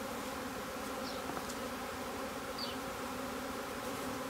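Steady, dense buzzing of a swarm of honey bees in the air, many wings humming together. The swarm is being pushed into a new box, and the bees are flying all around it.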